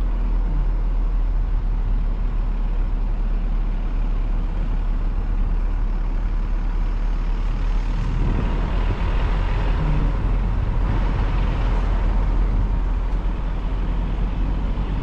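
Steady low rumble of wind buffeting an outdoor microphone, growing louder and brighter from about eight seconds in.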